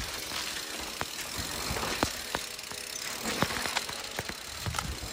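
Mountain bike rolling down a dirt and gravel trail: steady tyre noise on the ground with scattered clicks and rattles from the bike over bumps.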